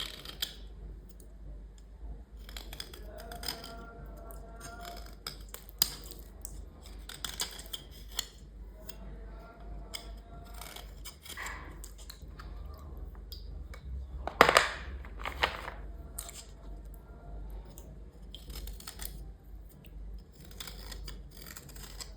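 A tool scraping grime off a small hard item in repeated short strokes, with a louder scrape about fourteen and a half seconds in.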